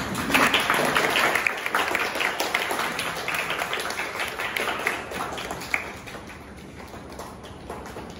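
Audience applause: many hands clapping, starting loud and dying away over about six seconds.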